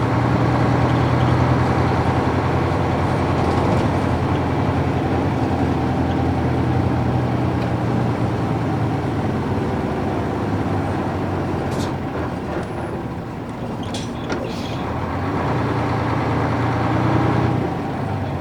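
Nissan Diesel UA440 city bus's PF6 diesel engine running under way, heard from inside the bus. The engine note eases off in the middle, builds again, then drops away just before the end, with a few short hisses in the second half.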